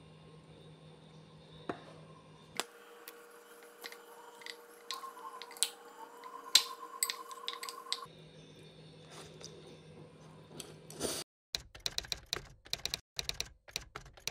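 Scattered clinks and taps of a utensil against a ceramic bowl as instant noodles are tossed, the loudest about six and a half seconds in. Near the end a rapid run of sharp clicks starts and goes on in quick bursts.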